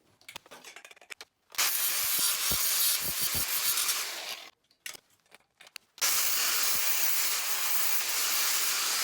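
Two long bursts of pressurised spray hissing, each lasting about three seconds, with a pause of a second and a half between them. A few low knocks sound during the first burst.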